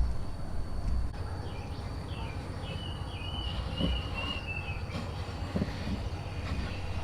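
Outdoor ambience: a steady low rumble, with a thin steady insect drone and a bird chirping a short run of notes a few seconds in.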